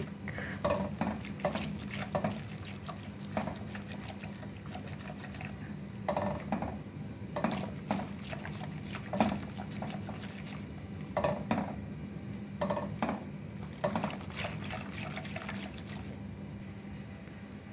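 Wire whisk beating a thin white batter in a bowl: liquid sloshing, with irregular clicks of the whisk's wires against the bowl. A steady low hum runs underneath.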